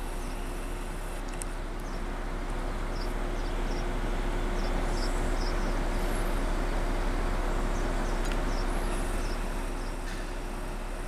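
Steady outdoor background noise that swells for several seconds in the middle and falls back, with a faint low hum under it and a scatter of faint, short high chirps.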